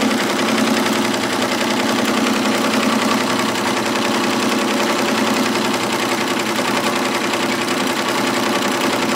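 Happy HCH PLUS multi-needle embroidery machine stitching at speed through latigo leather with a sharp-point needle: a steady, rapid mechanical clatter of the needle bar over a constant hum.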